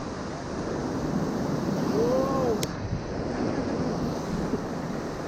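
Ocean surf washing steadily against a rocky shore, with wind buffeting the microphone. About two seconds in, a short pitched sound rises and falls, followed by a single sharp click.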